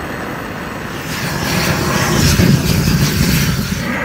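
Handheld propane torch burning with a steady rushing flame while lighting charcoal briquettes, growing louder about a second in.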